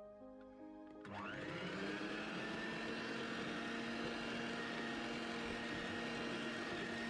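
Electric hand mixer switching on about a second in, its whine rising quickly as the motor spins up, then running steadily as its beaters blend flour into cake batter.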